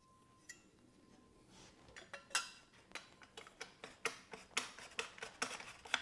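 Metal exhaust mid-pipe clinking and scraping against the header pipe and frame as it is slipped on and positioned by hand: a string of light, irregular metallic clicks and knocks starting about two seconds in.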